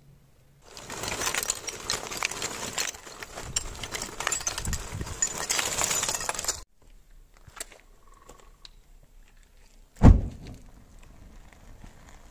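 Lump charcoal tumbling into a firebrick trough forge, a dense clatter of pieces knocking on brick and on each other for about six seconds. After a pause, a sudden low whoosh about ten seconds in as the charcoal catches and flames flare up.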